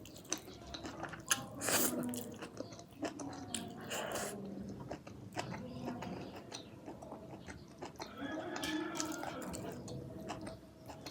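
Close-miked chewing and wet mouth sounds of a person eating a meal of rice and meat: irregular lip smacks, sticky clicks and squelches.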